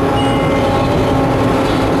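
Steady, loud running noise inside the cab of an EMD WDG4D diesel-electric locomotive: a low rumble with several steady humming tones, heard during a dynamic brake application. A brief faint high beep sounds just after the start.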